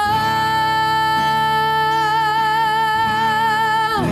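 A Christian song: a singer holds one long note with a slight vibrato over sustained accompaniment, the note falling away just before the end.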